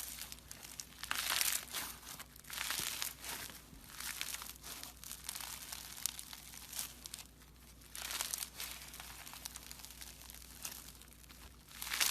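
Crisp crunching and crinkling in repeated bursts of about a second each, with quieter crackling between them.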